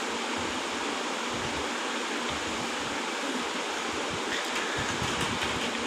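A steady, even hiss of background noise, with faint low rumbles now and then.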